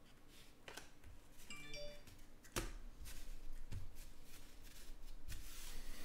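A stack of glossy trading cards handled and thumbed through, with soft slides and light snaps of card against card, the sharpest about two and a half seconds in. A brief faint chime-like tone sounds about one and a half seconds in.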